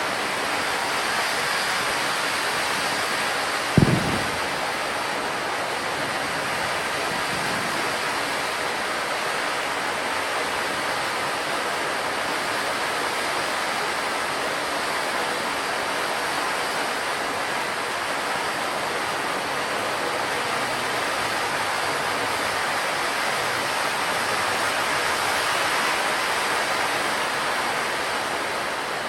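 Gold fountain firework hissing steadily as it sprays sparks, with a single sharp pop about four seconds in. The hiss swells slightly and then starts to fade near the end.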